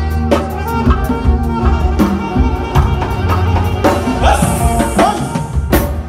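Live band playing: a drum kit keeps a steady beat under electric guitar and other pitched instruments, with a cymbal wash near the end.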